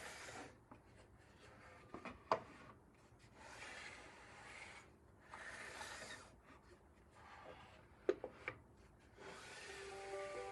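Wood being rubbed by hand in slow strokes, about one every two seconds, with a few sharp knocks about two seconds in and again near eight seconds.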